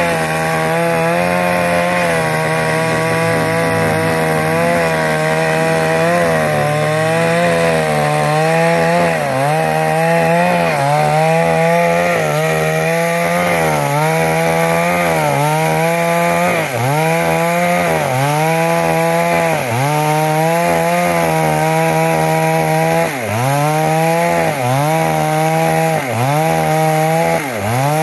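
Two-stroke chainsaw running at high speed while ripping wood lengthwise along the grain. After the first few seconds its engine pitch dips and recovers in a steady rhythm, about once every second and a half, as the bar is pushed into the cut and eased off.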